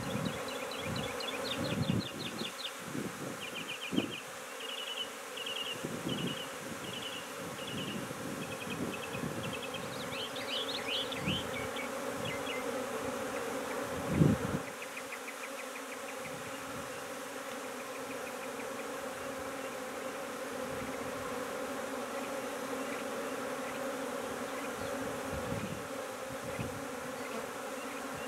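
Honey bee swarm buzzing steadily from an open nuc box as bee-covered frames are lifted and handled, with a few knocks of wooden frames against the box; the loudest is a thump about halfway through.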